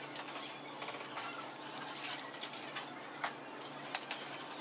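Close-up eating sounds: chewing with small wet mouth clicks, and a few sharper clicks near the end from spoon and bowl, over a steady low hum.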